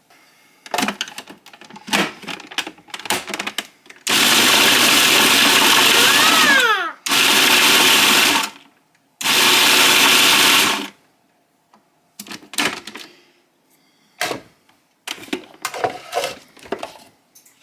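Electric food processor run in three pulses, about three, one and a half and two seconds long, chopping broccoli, with clicks and knocks of handling before and after.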